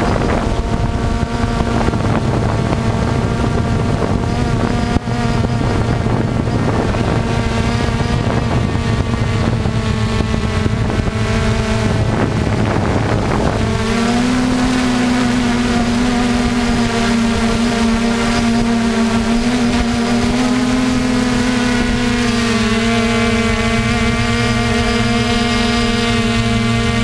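Multirotor drone's electric motors and propellers buzzing in flight, a steady pitched hum. Wind rumbles on the microphone until about halfway through, then clears as the hum settles slightly higher.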